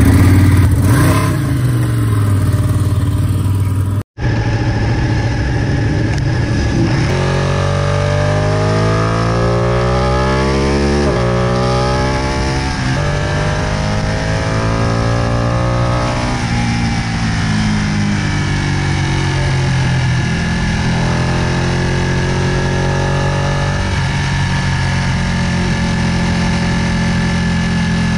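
Ducati 959 Panigale Corse's Superquadro L-twin on its stock exhaust. It runs at a standstill for a few seconds, then after a brief break it is under way, heard from on board: accelerating hard with the pitch climbing and dropping back at each upshift, falling away as it slows, then pulling again.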